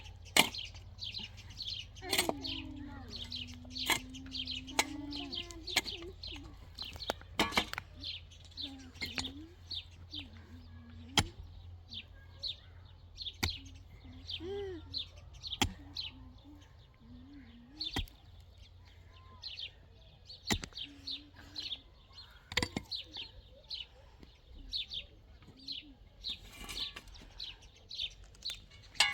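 Small birds chirping continuously, many short high chirps a second.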